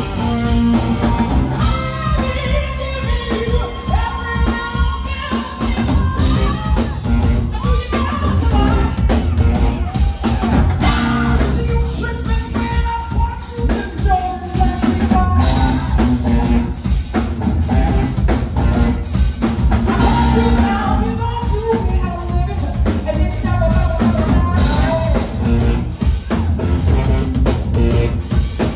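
Live rock band playing loudly: a drum kit, electric guitar and electric bass, with a woman singing over the band.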